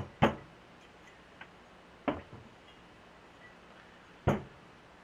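Metal SuperTrapp muffler parts knocking together as they are handled and fitted on a workbench: a quick pair of sharp knocks at the start, another about two seconds in and one more after four seconds, each with a short metallic ring.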